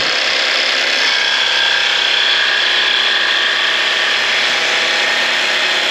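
Cordless jigsaw running under load, its blade cutting through a wooden board with a steady, rapid buzzing chatter. It stops suddenly at the end.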